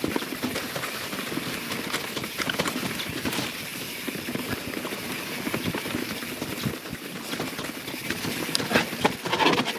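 YT Jeffsy 27 mountain bike descending a rough trail at speed: tyres rolling over wet leaves, roots and rocks, with a dense, continuous clatter of knocks and rattles from the bike.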